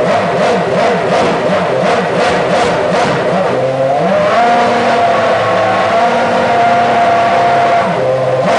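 Williams Toyota FW29 Formula One car's 2.4-litre V8 revved on the spot: quick repeated throttle blips, then about four seconds in the revs climb and are held steady for around four seconds, and quick blipping starts again near the end.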